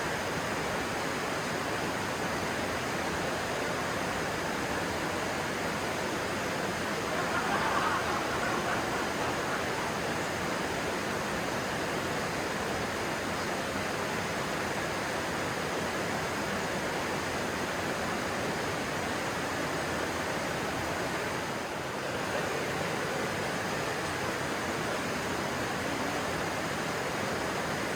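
Stream water rushing steadily, with a brief louder swell about eight seconds in.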